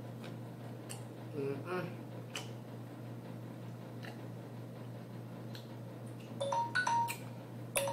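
A smartphone alarm tone goes off about six and a half seconds in: a run of short, clear chiming beeps. Before it there is only a low steady hum and, about one and a half seconds in, a brief muffled voice sound from a mouth full of frozen grapes.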